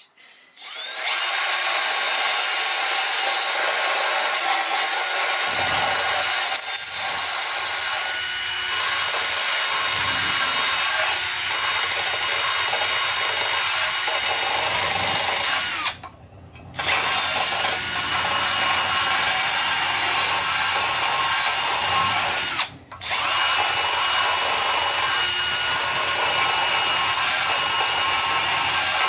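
Cordless drill spinning a mounted grinding stone against a cast valve cover, grinding away metal to trim it for clearance. It spins up about a second in, runs steadily, and stops briefly twice, about halfway through and again about three-quarters of the way.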